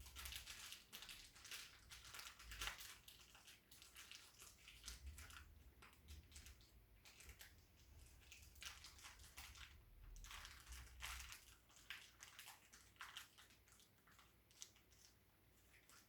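Faint, irregular rustling, crinkling and light clicks of small plastic and metal chair parts being handled, as screws are taken out and the back plate is readied for fitting.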